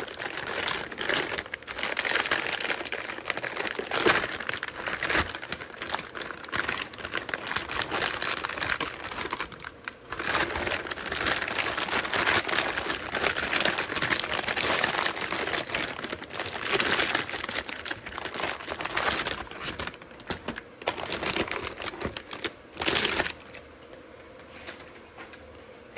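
Plastic packaging crinkling and rustling as it is handled, with a short lull about ten seconds in and a sharp knock about twenty-three seconds in.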